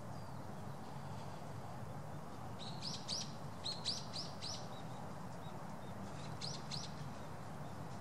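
Small bird chirping: a quick run of about seven short, high, rising chirps a few seconds in, then three more near the end, over a steady low background rumble.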